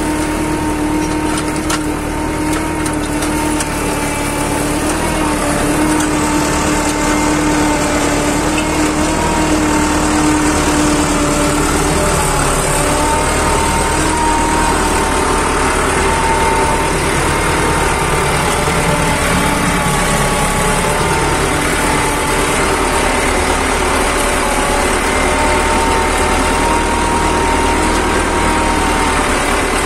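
Fiat 640 tractor's four-cylinder diesel engine running steadily under load while pulling a mounted plough, heard from the driver's seat.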